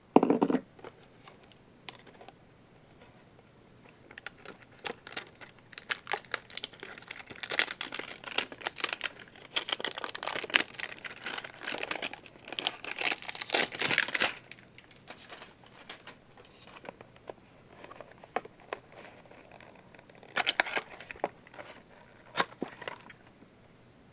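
Plastic packaging being handled and torn open, crinkling in irregular bursts with sharp clicks. The bursts are loudest through the middle, and a shorter burst comes near the end.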